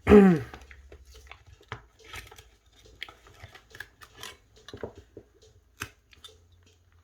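Small clicks, ticks and scrapes of a pry tool working a phone's plastic back cover loose, opening with a short, loud sound that falls in pitch.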